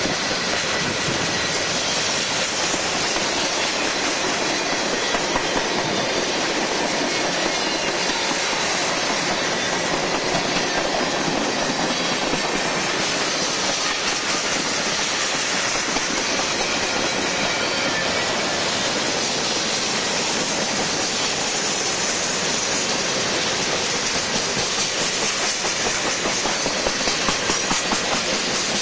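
Freight train cars rolling past close by: the steady noise of steel wheels running on rail, holding an even level throughout.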